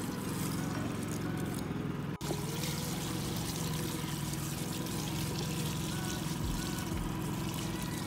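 Water pouring from a plastic jug and water bag onto clothes in the wash basin of a twin-tub washing machine, over the steady hum of a portable generator.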